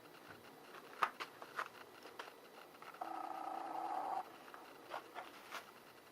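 Faint clicks and taps from handling a removed car wiper blade, with a steady buzzing tone that lasts just over a second from about three seconds in.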